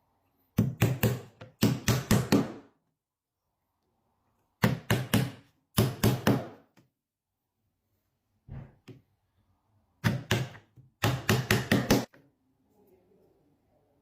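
Sharp knocks on wood, struck in quick clusters of three to five blows with short pauses between clusters, like a tool striking pieces of a wooden bench clamp during assembly.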